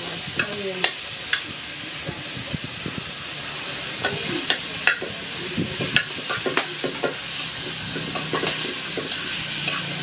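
Seasoning (sazón) sizzling in hot oil in a caldero over a wood fire: a steady frying hiss broken by scattered sharp clicks and knocks.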